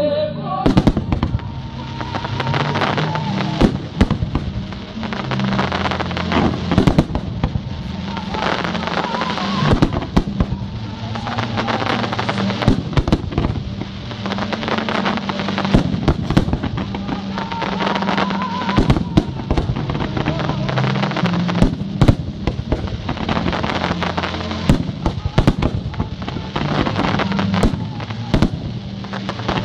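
Fireworks display: many sharp bangs and crackling bursts of shells going off throughout, over music with a steady low bass line.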